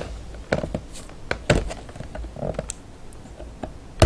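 Scattered light taps and clicks of a small cardboard figure box and its clear plastic tray being handled while sticky scotch tape is worked at with a metal letter opener, with one sharper knock near the end.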